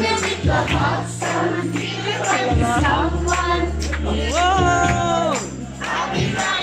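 Music with singing: voices sing a song over steady low bass notes, holding one note for about a second near the middle.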